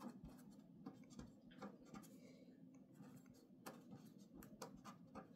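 A marker writing on paper, faint: short scratching strokes and light taps at uneven intervals.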